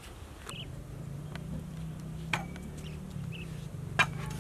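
Quiet background: a low steady hum that sets in about a second in, with a few faint clicks and a couple of short high chirps.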